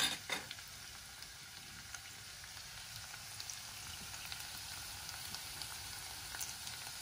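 Sliced garlic frying gently in hot oil in a pan: a soft, steady sizzle with scattered tiny pops. The garlic is being softened, not browned. A few sharp clicks come at the very start.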